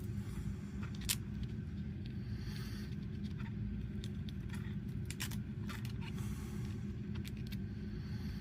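Light clicks and soft rubbing of a metal wristwatch case being handled and polished, over a steady low hum. The sharpest click comes about a second in.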